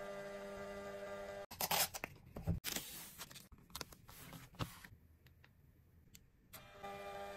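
Small thermal printer whirring steadily for about a second and a half as it feeds out a printed paper strip. Then come a few quick paper rips and rustling as the strip is torn off and pressed onto a notebook page. The printer whirs again near the end.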